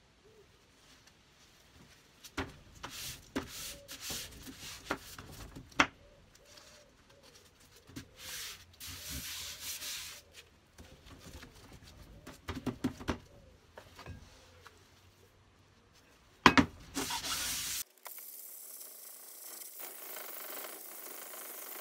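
Sheets of abrasive paper handled and smoothed flat on a board: rustling, crackling and sharp taps, with a loud burst of paper noise at about 16 s. From about 18 s, a steady scratchy rasp as a sanding block is rubbed back and forth over the plane's cast-iron body, stripping its old paint back toward bare metal.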